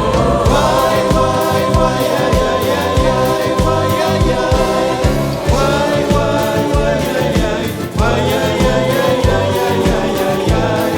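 Andean folk music: a choir singing long held notes over steady rhythmic percussion.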